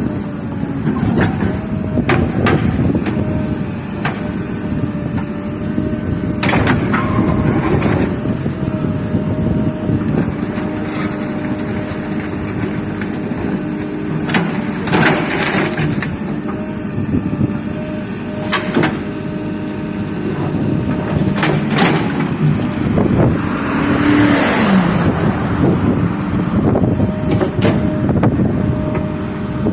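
Backhoe loader's diesel engine running steadily, its hum shifting in pitch as it works, with sharp knocks every few seconds.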